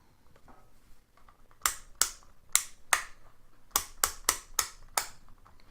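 Rotary selector switch of a Neoteck NT8233D Pro digital multimeter turned step by step, clicking through its detents: two runs of sharp clicks, four and then five, a few per second. The switch is very firm.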